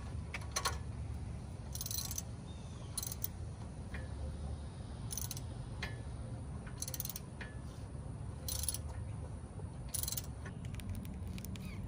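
Hand ratchet wrench clicking in short bursts, about six strokes a second or two apart, as the brake caliper bracket bolts are tightened.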